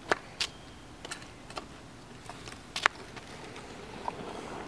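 A few scattered, sharp light clicks, irregularly spaced, over a steady outdoor background hiss.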